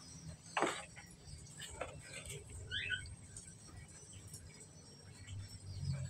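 Javan myna in a wire cage: a sharp click a little over half a second in, then one brief squeaky call note about three seconds in, over a faint low rumble.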